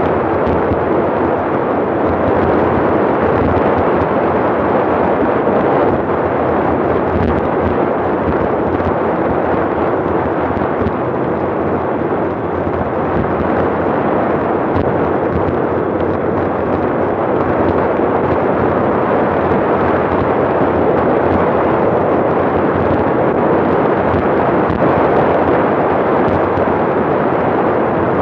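Wind rushing and buffeting over the microphone of a handlebar-mounted camera on a bicycle descending at about 40–45 mph. The noise is loud and steady throughout.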